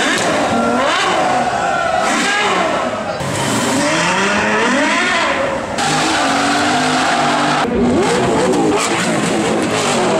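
Ferrari 488 GTB's twin-turbo V8 through a Capristo exhaust, revving and accelerating hard, its pitch climbing and dropping again and again. The sound jumps abruptly about three times, as from cuts between clips.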